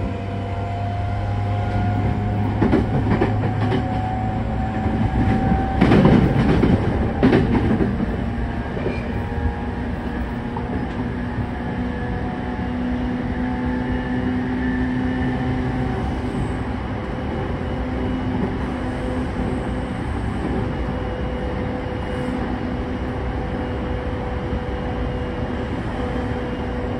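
Running noise of a JR E231-0 series train, heard from inside a motor car: traction motor whine rising gently in pitch over the first several seconds as the train gathers speed. A louder stretch of wheel-on-rail knocking comes about six to eight seconds in, then an even rumble with a steady hum.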